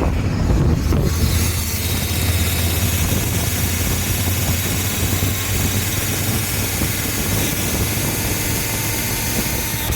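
Yamaha Ténéré 700's parallel-twin engine running steadily with the chain drive turning: a strong steady hum under a dense hiss, carrying the loud noise from the front sprocket and chain-roller area that persists with a brand-new chain and sprockets, which the owner suspects comes from the chain rollers.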